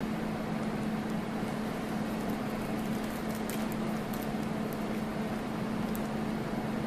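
Steady low hum over even room noise, like equipment or ventilation. A few faint crinkles of a clear plastic drape package being handled come from about three and a half seconds in.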